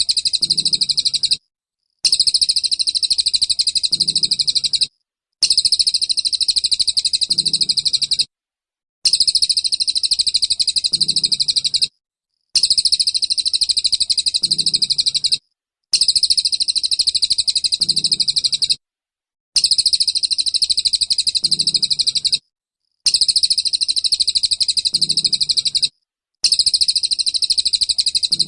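A small songbird's rapid 'tembakan' song, a fast, dense, high-pitched rattle of notes delivered as bursts of about three seconds, each followed by a short pause. The bursts repeat evenly, about nine times over.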